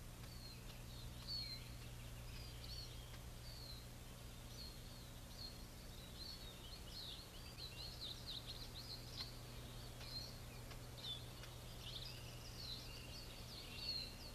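Small birds chirping faintly in short, quick calls that grow busier about halfway through, over a steady low hum.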